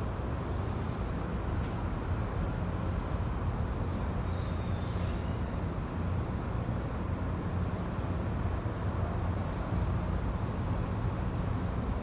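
Steady low background noise, strongest in the bass, with no distinct events.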